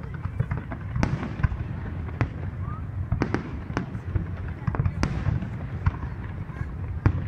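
Aerial firework shells bursting in rapid, irregular succession, a dozen or so sharp bangs over a steady low rumble.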